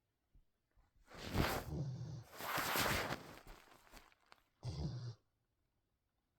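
A sleeping animal snoring. A long, noisy breath with a loud hissing rush of air runs through the middle, and one short, low snore comes near the end.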